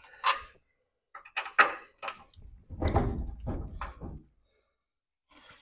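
Metal knocks and clunks against a steel truck frame rail while bolts are fitted by hand: a few sharp knocks in the first two seconds, then a longer clattering scrape.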